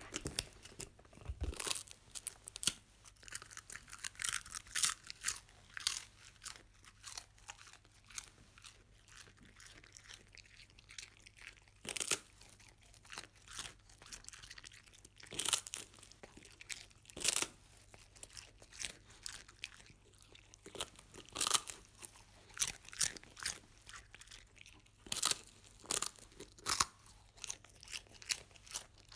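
A dog crunching and chewing strawberry-flavoured puffed rice sticks close to the microphone: irregular crisp crunches coming in runs, with quieter gaps between.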